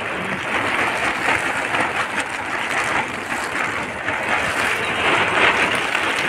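Very heavy rain and wind beating on a camping tent, heard from inside as a steady, dense hiss.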